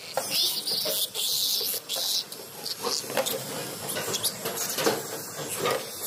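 Piglet squealing while held in a worker's hands: harsh, high-pitched squeals for about the first two seconds, then a few shorter squeaks.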